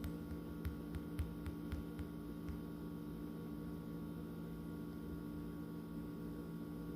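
Steady electrical hum with several short clicks or taps in the first two and a half seconds.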